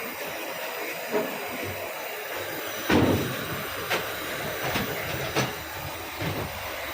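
Steady hiss with several sharp knocks and clatters of metal, the loudest about three seconds in, during a check of a refrigerator compressor's pumping.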